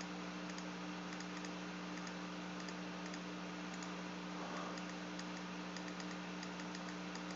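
Faint computer keyboard typing: scattered light key clicks over a steady low hum.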